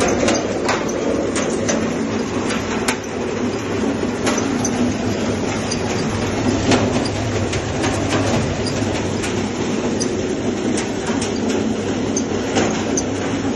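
Electric garlic clove separating machine running: a steady motor and drum hum under a continuous rattle of garlic passing through, with scattered sharp clicks throughout.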